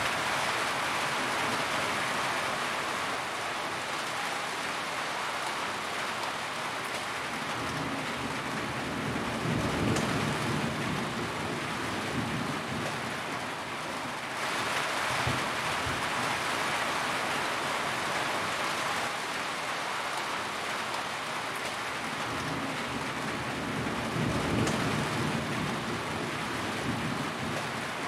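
Steady heavy rain pattering on a corrugated metal roof, with two low rumbles of thunder, about ten seconds in and again near the end.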